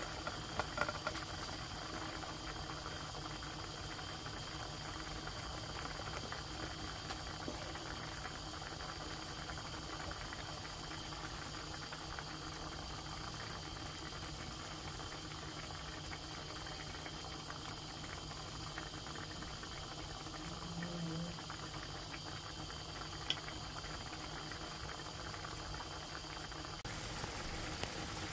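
Vegetable paella broth bubbling at a steady boil in a paella pan.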